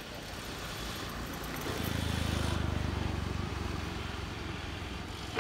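A motor vehicle passing: a low engine hum swells about two seconds in and fades away by about four seconds, over steady outdoor background noise.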